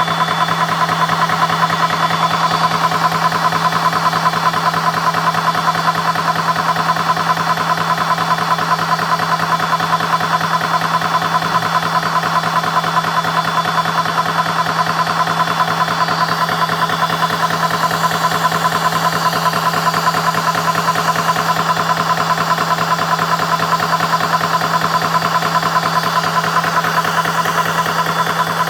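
CS6 Pro portable high-pressure PCP air compressor running steadily, a constant hum under a fast, even pumping pulse, as it fills the air rifle's tank once the filter valve has opened.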